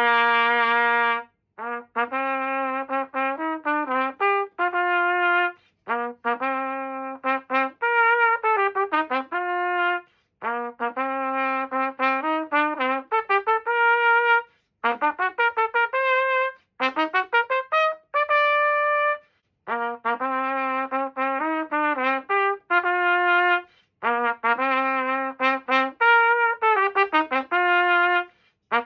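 A Yamaha YTR-2330 B-flat trumpet playing a melody alone, in short phrases of held and quick notes with brief pauses between them.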